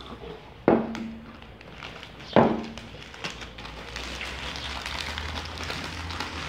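Two drinking glasses set down on a wooden table, two sharp knocks with a short ring about a second and a half apart, followed by the steady crinkling of foil crisp bags as hands dig into them.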